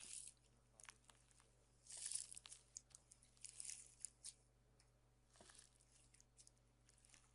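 Faint crackling, tearing sounds of slime being stretched and squeezed, coming in short spells.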